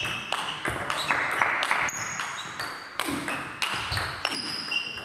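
Table tennis rally: the plastic ball clicks sharply off rubber-covered bats and the table in quick succession, several times a second. Short high squeaks of shoes on the sports-hall floor come in between the hits.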